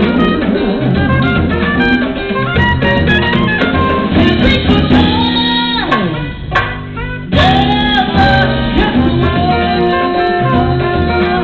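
Live jazz band playing with piano, upright bass, drum kit and a horn, with a woman singing. About six seconds in, a long slide down in pitch leads into a brief drop in the music before the band comes back in full.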